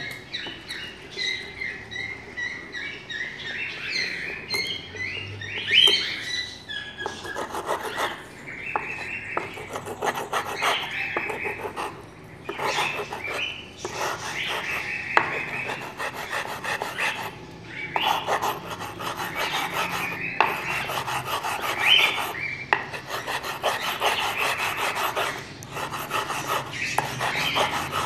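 A rough hand-held stone rubbed back and forth over a flat bar wet with water: a wet rasping scrape in repeated strokes, working ground black pepper off the bar into the water.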